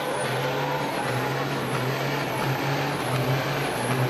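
Heavy diesel semi-truck engine held hard and steady during a smoky tire burnout: a steady low drone with a noisy rush over it.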